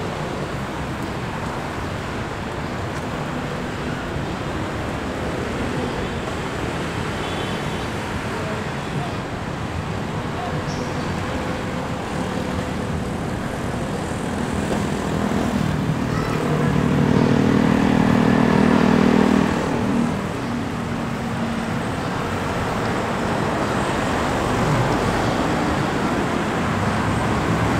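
Steady city street traffic noise with faint background voices. A louder vehicle engine passes for a few seconds just past the middle.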